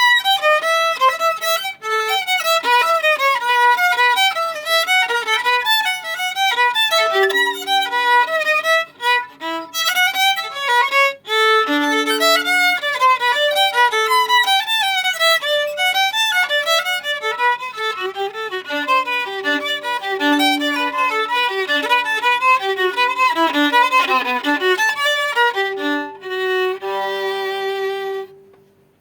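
Solo violin playing quick runs of notes with a few longer held notes, ending on a held note that stops near the end.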